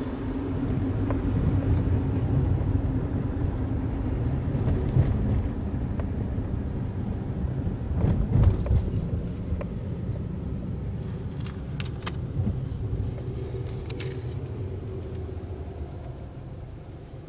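Car interior noise heard from the driver's footwell: a steady low rumble of engine and road noise that slowly fades toward the end, with a few light clicks and knocks around the middle.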